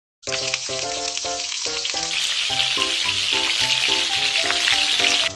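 Food sizzling as it fries in a hot pan, a steady crackling hiss, with a simple melody of short repeated notes playing over it.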